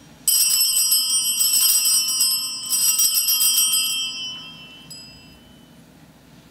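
Altar bells (Sanctus bells) shaken in two rounds, a bright jingling of several high-pitched bells that rings out and fades over about a second and a half. They mark the elevation of the chalice at the consecration.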